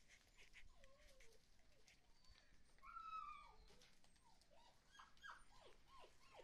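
Husky puppy whining faintly: a wavering whine about a second in, a longer, higher whine about three seconds in, then a quick run of short whines that each fall in pitch near the end.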